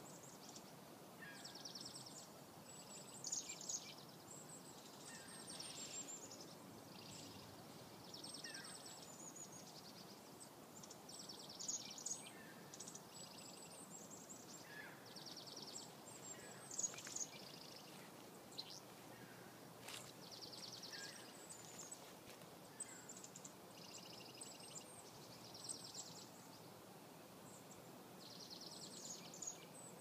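Chickadees giving repeated alarm calls, about ten in all, each a few short high notes followed by a run of buzzy notes, every two to three seconds.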